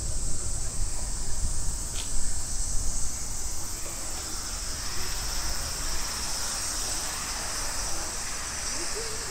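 Summer cicadas singing in a steady, high, shrill chorus, over a low wind rumble on the microphone.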